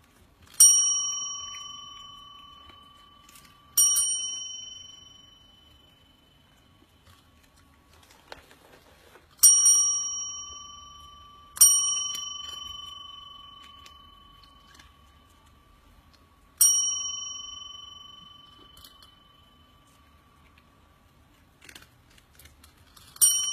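A small metal bell struck six times at irregular intervals, each ring dying away over a few seconds. A cat is ringing it to ask for food.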